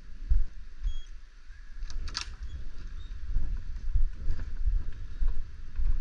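Wind buffeting the action camera's microphone in irregular gusts, a low rumble, with one short sharp click about two seconds in.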